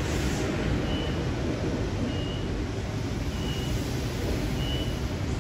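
Double-deck electric suburban trains running on the tracks, a steady low rumble. A short high beep repeats about every second over it.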